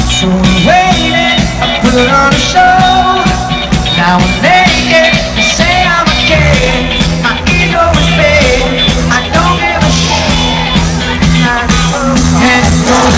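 Live pop-rock band playing loud, with a male lead singer, heard from the crowd close to the stage.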